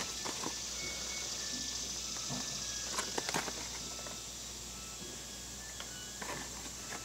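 Steady background hiss with a short cluster of faint clicks about three seconds in, from a plastic blister-packed toy card being handled.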